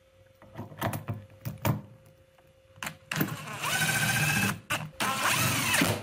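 A DeWalt cordless drill driving screws into the sheet-metal top of a refrigerator cabinet: a steady motor whine in two runs, the first about a second and a half and the second shorter. A few light clicks of screws and tool being handled come before.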